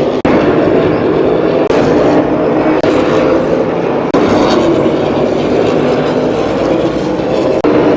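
NASCAR stock cars' V8 engines running loud and continuous on track. The sound drops out for an instant twice, just after the start and near the end.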